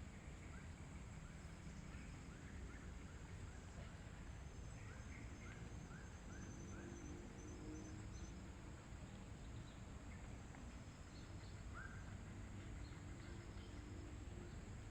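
Faint bird chirps, short rising notes in quick runs of several, with a few thin high notes, over a steady low rumble.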